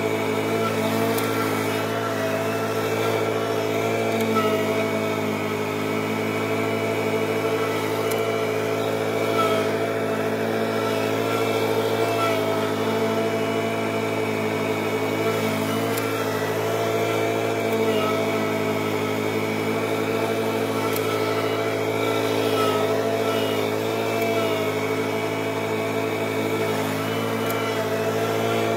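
An engine running steadily at constant speed, a continuous hum made of several steady tones that holds the same level throughout.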